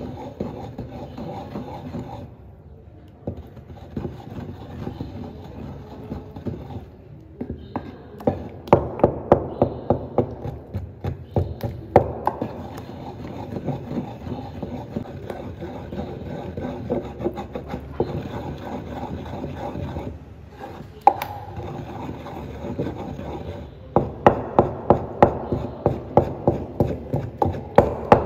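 Wooden pestle beating and churning thick blended bean paste in a wooden mortar to whip akara batter: wood rubbing and knocking against wood, in runs of about three to four strokes a second with brief pauses.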